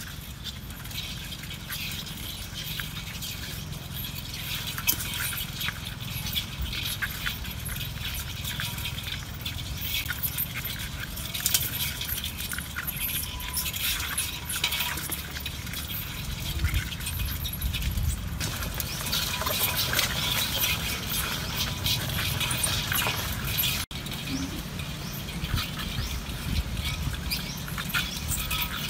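Continuous light clicking and scratching, like live crabs' legs and claws scrabbling on a stainless steel bowl, over steady outdoor background noise and a low rumble.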